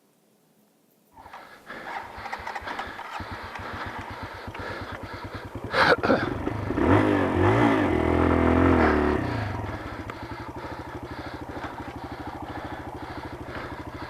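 Dirt bike engine running. About six seconds in there is a sharp knock, followed by about three seconds of loud, wavering mechanical noise before the engine settles back to a steady run. It is a weird, bad sound that the rider took for something mechanical rather than tire slip, and he suspects the sprocket or chain catching on a rock, or the start of clutch slip.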